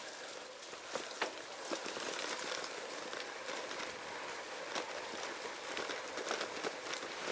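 Rain falling on wet ground: a steady hiss with scattered drip ticks.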